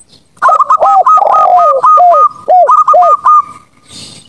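Zebra dove and spotted dove cooing together: a fast run of short rising-and-falling notes at two pitches, higher and lower interleaved. It begins about half a second in and lasts about three seconds.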